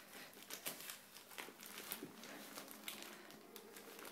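Wrapping paper crinkling and rustling in irregular small crackles as a German shepherd chews and paws at a wrapped present.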